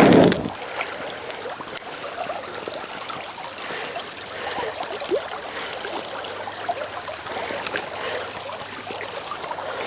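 Stream water running steadily over a shallow run, with a few faint clicks over it and a brief loud rustle right at the start.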